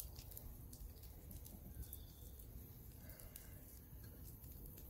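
Butter knife scraping the scales off a whole whitefish: faint, irregular small clicks and scrapes.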